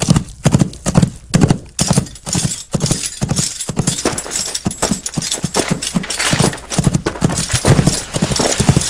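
Clip-clop of horse hooves in a steady rhythm, a couple of hoofbeats a second at first, then quicker and busier in the second half.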